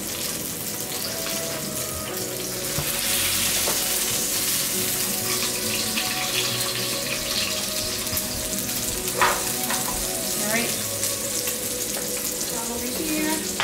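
Frenched racks of lamb searing in oil in a skillet: a steady sizzle that grows louder about three seconds in.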